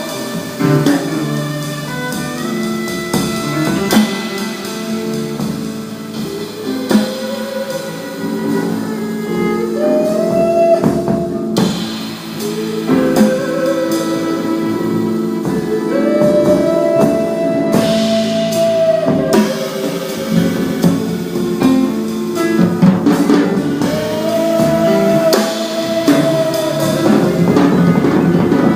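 Live band playing an instrumental passage of a song, with drum kit and a sustained, gliding lead melody over guitar.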